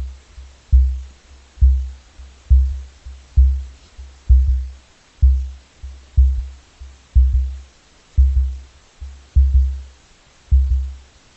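Sound effect of a giant moa's call: deep low booms repeating about once a second, each one fading away before the next.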